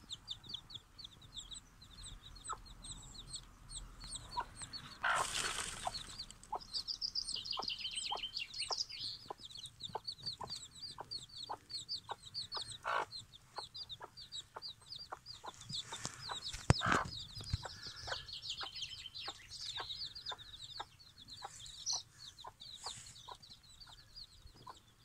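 A mother hen clucking steadily in short low clucks, a few a second, while her chicks peep constantly in high chirps. Two brief louder rustling noises cut in, about five seconds in and near two-thirds of the way through.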